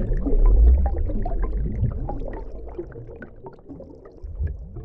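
Underwater bubbling and gurgling over a low rumble, with scattered clicks and short squeaky glides. Loudest about a second in, growing fainter toward the end.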